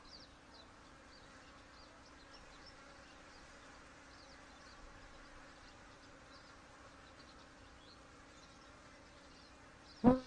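Honey bees humming steadily around an open hive during a frame inspection. Just before the end comes a single sharp knock, louder than the hum.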